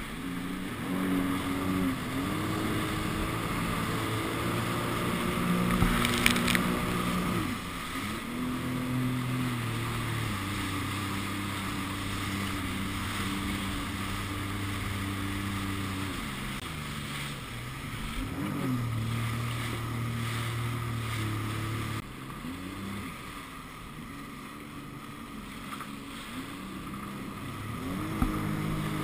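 Sea-Doo RXT 260iS jet ski's supercharged three-cylinder four-stroke engine running at speed, its pitch rising and falling again and again as the throttle is opened and eased off, over a steady rush of water and wind. A brief loud impact about six seconds in.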